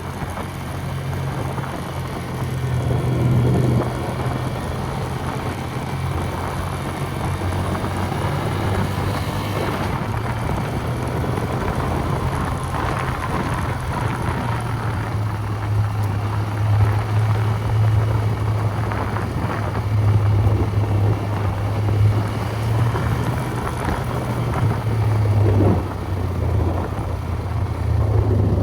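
A vehicle engine running steadily under way, a constant low hum with road and wind noise over it.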